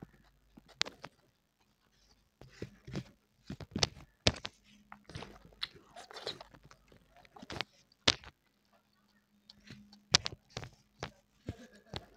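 Close-miked eating: a person chewing and biting mouthfuls of fena bhat (rice in its starchy water) with bhorta and fried beguni. Irregular sharp mouth clicks and wet smacks come every half second or so, with a few short pauses.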